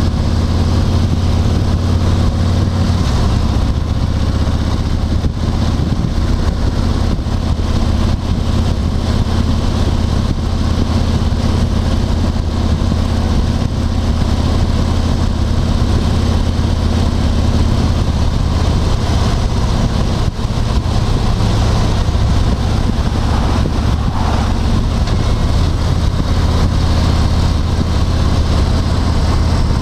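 Steady engine and road noise inside the cabin of a car or truck being driven along a road.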